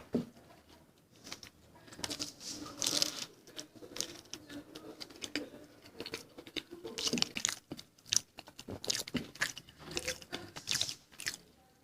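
A person eating a samosa: bites into the crisp fried pastry, then crunching and chewing in an irregular run of small crunches and mouth sounds.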